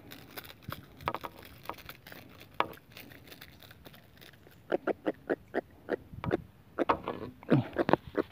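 Freshly landed juvenile giant trevally held in the hand, croaking in rapid series of short pulses, about five a second. They come in two bouts, one around the middle and one near the end.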